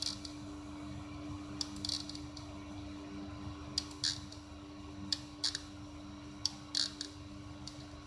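Buttons on a Vacon NX frequency-inverter keypad clicking as they are pressed, short clicks about once a second, some in quick pairs, over a steady hum.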